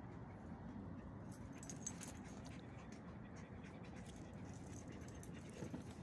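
Small terrier-type dog panting and whimpering excitedly as it jumps up, with a brief metallic jingle about two seconds in.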